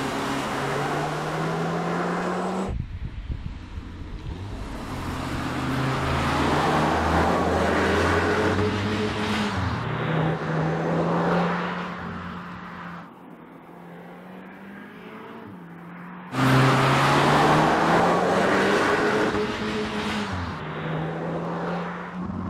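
2021 Audi S3 Sportback's turbocharged 2.0 TFSI four-cylinder engine running under hard acceleration, its pitch climbing and dropping back several times. The sound cuts abruptly to a new take about three seconds in and again at about sixteen seconds, with a quieter stretch just before the second cut.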